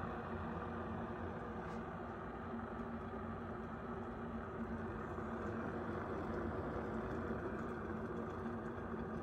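Cuisinart electric egg cooker running, with water boiling and steaming under its stainless steel dome: a steady, unbroken rumble.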